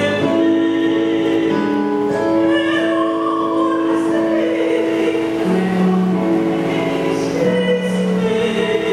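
A woman sings slow, long-held notes into a microphone over keyboard accompaniment from a Roland Fantom G8 synthesizer.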